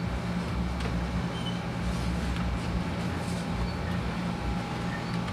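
Ricoh Aficio MP2000 digital copier running an enlarged copy: a steady low mechanical hum, with a few faint rustles of paper being handled.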